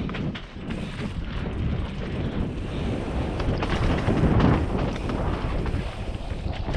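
Wind buffeting the microphone of a helmet-mounted camera over the continuous clatter and rattle of a mountain bike and its tyres on a rough trail descent.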